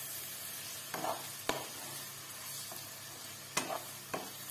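Shredded chicken and chopped vegetables sizzling softly in oil in a wok while a spatula stirs them, with a few short scrapes and taps of the spatula against the pan.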